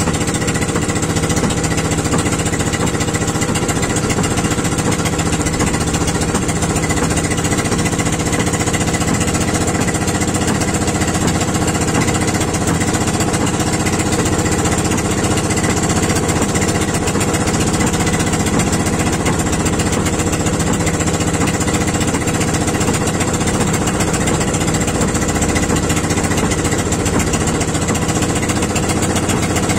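Engine of a motorized outrigger boat (pumpboat) running steadily under way, its pitch even throughout.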